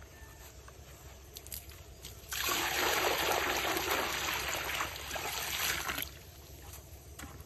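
Water poured from a plastic bucket into a large metal wok, splashing and sloshing for about four seconds, starting a couple of seconds in.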